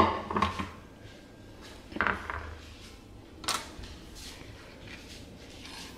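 Plastic microwave idli-stand trays and kitchen utensils being handled on a countertop: a few separate knocks and clatters, the sharpest about three and a half seconds in.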